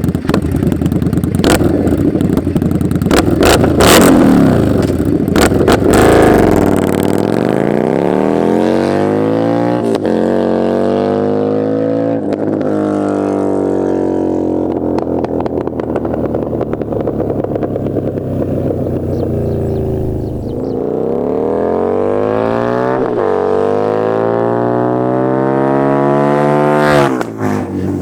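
Indian Scout Bobber's liquid-cooled V-twin through a Freedom Performance 2-into-1 Combat exhaust: choppy revving with sharp cracks for the first few seconds, then the bike pulling away, its pitch climbing through the gears with drops at each shift, easing off about two-thirds of the way through and accelerating hard again before a sudden drop near the end.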